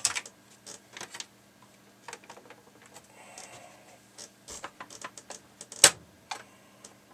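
Irregular clicks and taps from hands on the keys of an Amstrad CPC 464 computer, with one sharper, louder click about six seconds in.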